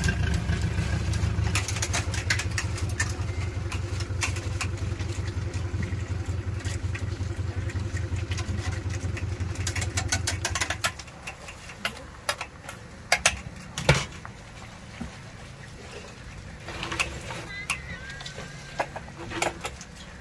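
An engine idling steadily, cutting out a little over halfway through; after it stops, a few sharp metal clinks from the noodle strainer and pot.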